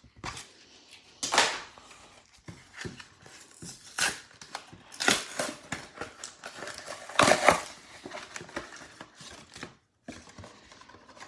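A cardboard-backed plastic blister pack being torn open by hand: irregular ripping of the cardboard backing and crinkling of the plastic blister, the loudest rips just over a second in and about seven seconds in.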